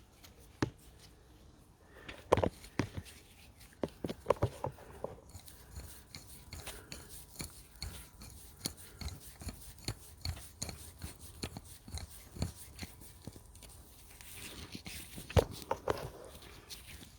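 Light clicks, scrapes and knocks of a metal injector clamp bolt being threaded in and handled by hand with small tools. Several sharp knocks stand out, the loudest about two and a half seconds in and again near the end.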